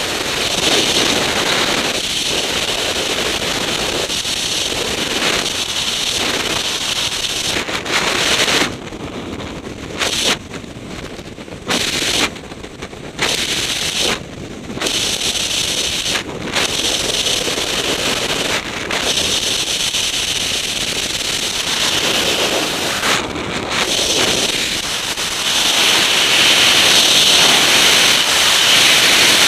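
Freefall wind rushing over the microphone of a skydiver's camera: a loud, steady rush of air that drops away in several short gaps in the middle and grows louder again near the end.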